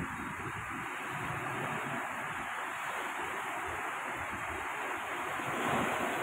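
Surf breaking and washing up on a sandy beach, a steady rushing with a swell of a breaking wave near the end. Wind buffets the microphone in low, uneven rumbles.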